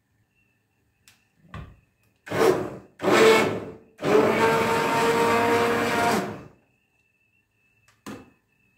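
Electric blender puréeing lentil soup in three bursts, two short ones and then a longer run of about two and a half seconds, with a steady motor whine. A few light knocks come before and after.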